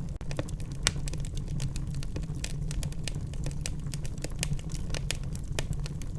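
Wood fire in a fireplace crackling, with irregular sharp pops and snaps over a low steady rumble of the flames; one louder pop a little under a second in.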